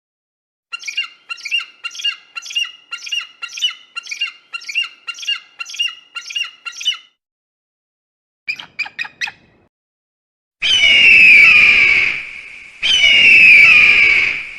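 Bird of prey calls. A run of about a dozen short, sharp calls at roughly two a second is followed by a quick burst of four. Near the end come two long, loud screams that fall in pitch, each about two seconds long.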